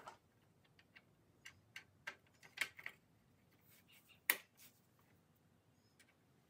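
Faint, scattered clicks and taps of hardware being fitted by hand as a mounting bracket is bolted to a Jeep frame, with one sharper clink about four seconds in.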